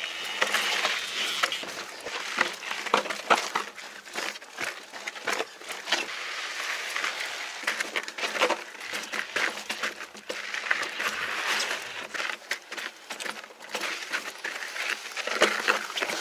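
Mountain bike riding over rocky trail: continuous crunching of tyres on grit and rock, broken by many sharp clicks and rattles from the bike.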